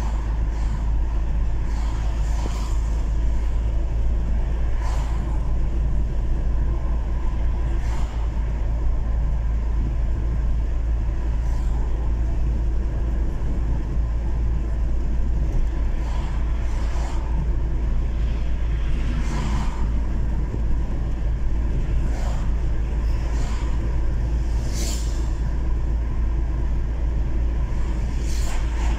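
Steady road and engine rumble of a car driving along a city boulevard, heard from inside the moving car, with a few short knocks scattered through it.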